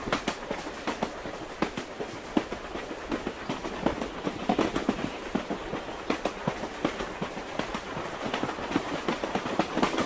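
Suburban electric train (elektrichka) in motion, heard from inside the carriage: a steady running noise with frequent rattling clicks.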